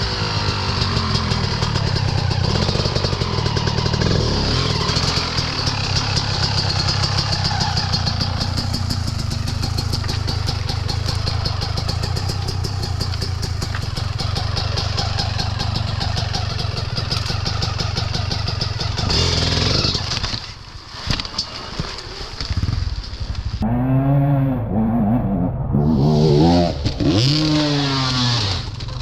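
Enduro motorcycle engine running hard and steadily, dropping off briefly about twenty seconds in, then revved up and down several times near the end.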